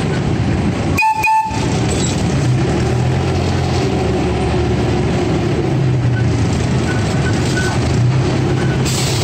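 Miniature amusement-park train running along its track: a steady low engine hum over a rolling rumble, with a short high tone about a second in.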